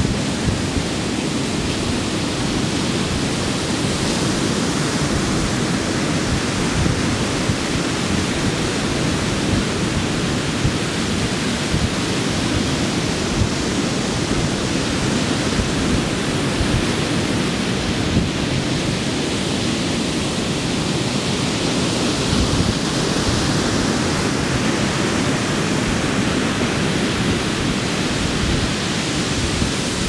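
Pacific Ocean surf breaking and washing up a sandy beach: a steady rushing wash of waves, its hiss swelling about two-thirds of the way through.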